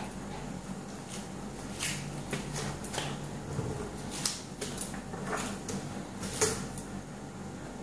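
A Shih Tzu scuffling with a ball on a tiled floor: irregular scrapes and taps of paws and ball on the tile. The loudest taps come about four seconds and six and a half seconds in.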